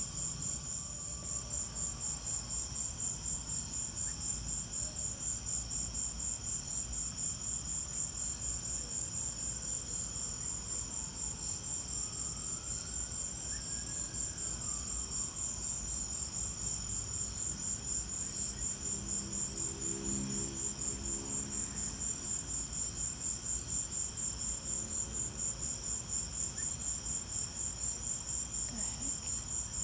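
Crickets chirping in a steady chorus: a high trill of rapid, even pulses that never lets up.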